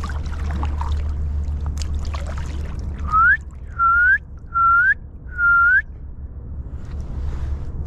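Four loud whistled notes, a little under a second apart, each held briefly and then sliding up in pitch at its end, over a steady low rumble.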